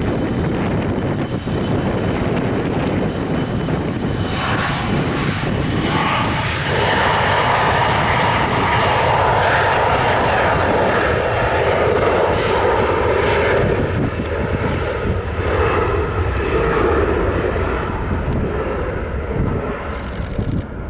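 Jet engines of an Embraer E-Jet regional airliner running loud and steady, with a whine that swells about five seconds in and eases a little near the end.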